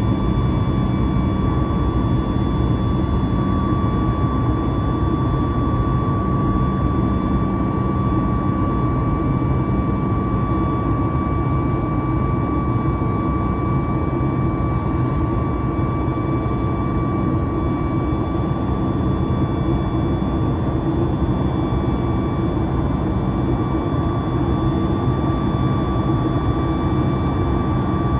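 Boeing 737 MAX 8's CFM LEAP-1B turbofan engines heard from inside the cabin during the climb after takeoff: a steady deep roar with a steady high fan whine on top. A higher whine grows a little stronger near the end.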